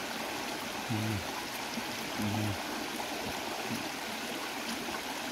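A stream of water running steadily over rocks. A man eating makes two short low 'mm' hums, about a second in and again a little over two seconds in.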